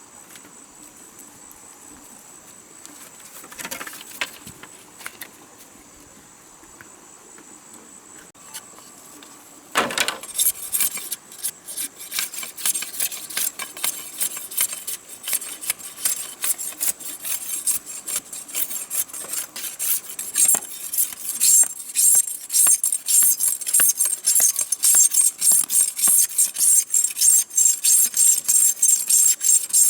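Rhythmic rasping strokes of a hand tool scraping or sawing wood start about ten seconds in and grow louder. Before that there is a steady high-pitched insect drone.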